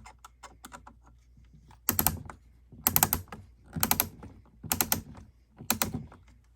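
A screw being tightened with a hand screwdriver into 3D-printed plastic parts: faint ticks at first, then five short bursts of rapid clicking about once a second, as each turn draws a nut in to pull the play out of the mechanism.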